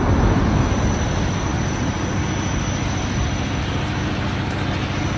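The rumble of an explosion fading away at the start, then a steady rushing noise.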